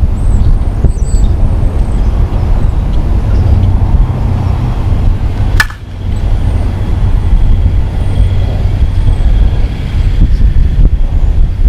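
Wind buffeting the microphone, a loud, steady low rumble, with a single sharp crack about halfway through.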